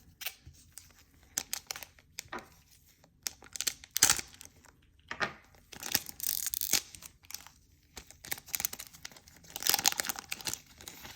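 Foil trading card booster pack being torn open and its wrapper crinkled, in a run of sharp crackling and rustling bursts, loudest about four, six and ten seconds in.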